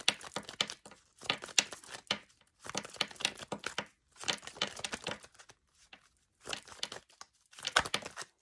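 A deck of oracle cards being shuffled by hand, hand over hand: crisp flicking and slapping of card edges in about six short bursts with brief pauses between them.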